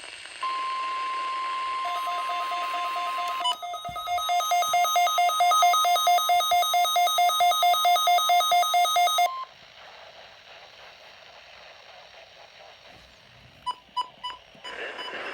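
NOAA Weather Radio warning alarm tone, a steady high tone about nine seconds long, with a weather alert receiver's own alarm beeping rapidly over it from about two seconds in; the receiver sounds its alarm in response to the weekly test tone. Both stop together, and three short beeps follow near the end.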